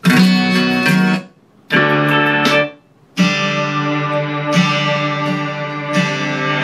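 Guitar music played loud through the Chialstar Bluetooth soundbar from its micro SD card. It starts, breaks off twice for about half a second as the track is restarted from the remote, then plays on steadily.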